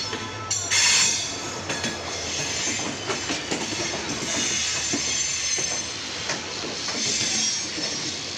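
Indian Railways passenger train rolling along the track, heard from an open coach door: a steady rumble of wheels on rail with irregular clacks over joints and points, a louder rush about a second in, and faint wheel squeal as the train runs into the station.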